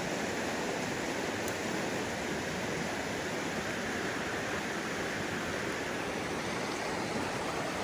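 Steady rush of a tumbling mountain trout stream, water flowing over rocks without letting up.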